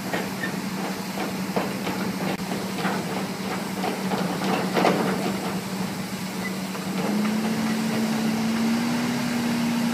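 Pile-driving rig's engine running steadily while its hydraulic hammer strikes a timber pile with repeated knocks, roughly every half-second to second. The blows die away after about six seconds, and the engine's pitch steps up slightly a little later.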